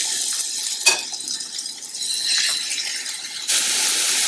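Beef chunks sizzling as they sear in hot oil in a stainless steel skillet, with a sharp clink about a second in; the sizzle gets louder near the end as the pan fills with meat.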